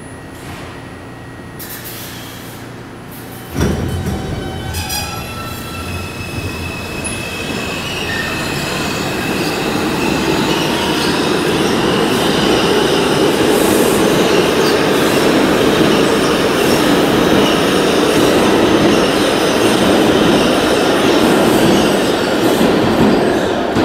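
New York City subway train passing on the far track, gaining speed. Its wheels rumble on the rails with squeals and a slowly rising high whine. The sound jumps up suddenly a few seconds in and builds to a steady loud roar.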